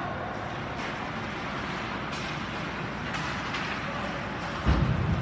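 Ice hockey rink during play: a steady noisy wash of skates on the ice, with a few faint clicks and a heavy low thump near the end.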